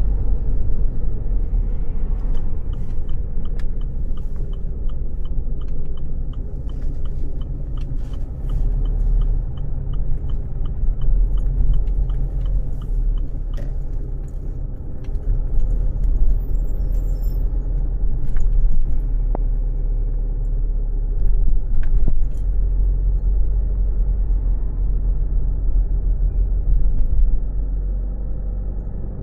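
Car interior: steady low engine and road rumble. For about ten seconds in the first half, a turn-signal indicator ticks evenly, about two to three times a second, then stops; a few scattered clicks follow.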